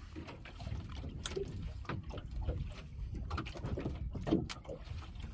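Water slapping against the hull of a small open fishing boat, with scattered knocks and splashes.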